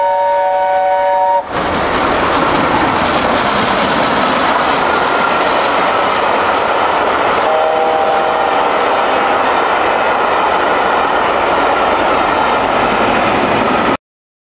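LNER A4 steam locomotive 4464 'Bittern' sounds its three-note chime whistle for about a second and a half. After an abrupt change, there is the loud, steady noise of the locomotive and its coaches passing. The chime whistle sounds again more faintly for about two seconds, starting about seven and a half seconds in. The sound cuts off suddenly near the end.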